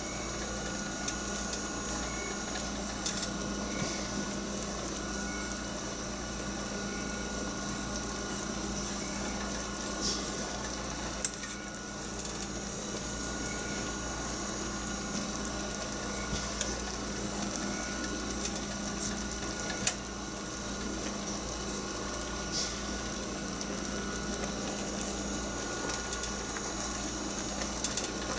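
Strawberry-rhubarb jam bubbling at a full boil in a stainless steel pot, stirred slowly with a wooden spoon, with scattered light knocks of the spoon against the pot over a steady hum.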